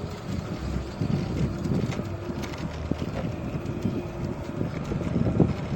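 Wind buffeting the microphone over the low rumble of an electric rental scooter rolling along a city street at speed.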